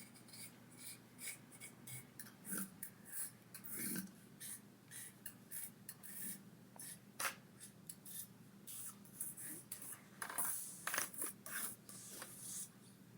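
Dubbed-in sound effects of tiny tools working on a face: rapid, irregular scratching, brushing and clicking strokes, several a second, with a few louder scrapes near the end.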